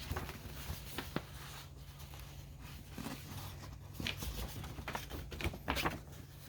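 A folded paper poster being unfolded and handled: scattered soft paper rustles and crinkles, with a low steady hum underneath.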